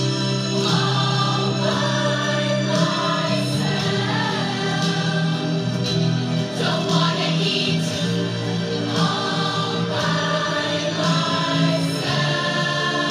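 A large chorus of women singing together in held notes, with musical accompaniment.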